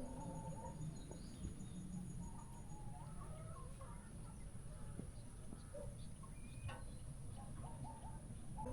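Chickens clucking faintly in short, scattered calls over a steady high hiss.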